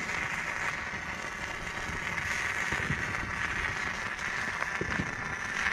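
Two hand-held Bengal fire torches burning together with a steady hiss, throwing sparks.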